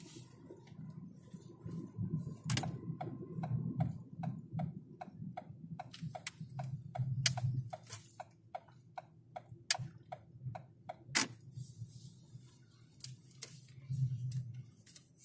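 Car turn-signal indicator ticking at an even pace, about three clicks a second, over low engine and road rumble inside the car's cabin. The ticking stops about eleven seconds in, with a sharper click.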